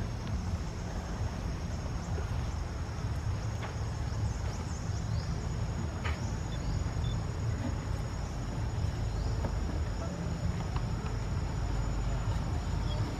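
Steady high-pitched insect drone over a low rumble, with a few short chirps about four to five seconds in.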